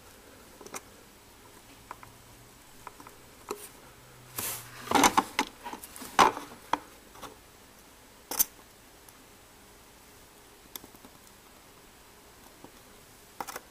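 Scattered light clicks and taps of a circuit board, soldering iron and solder wire being handled while the USB connector's pins are hand-soldered. A cluster of taps comes about five to six seconds in, and one sharp click a little past eight seconds.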